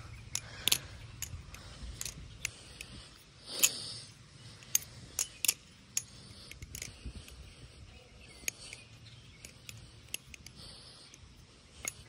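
Firefly V2 balisong trainer being flipped: its handles and blade clicking and clacking together in a string of short, sharp metallic clicks at irregular intervals, with one louder rattle about three and a half seconds in.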